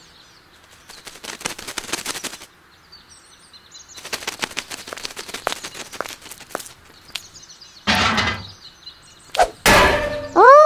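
Faint bird chirps over a meadow, broken by two runs of rapid, sharp clicking and rattling, each about two seconds long. Near the end come short, loud bursts of rushing noise.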